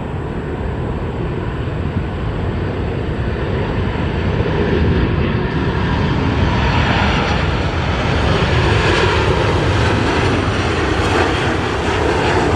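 Jet airliner engine noise, a steady rushing sound that grows louder from about the middle on.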